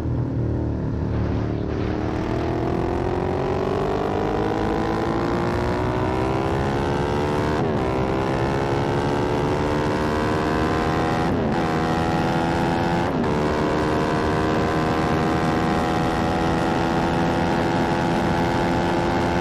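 Ducati sportbike engine under hard acceleration, its pitch climbing steadily. Three brief breaks, about 8, 11 and 13 seconds in, are upshifts, after which it holds high revs, with a steady rush of wind and road noise underneath.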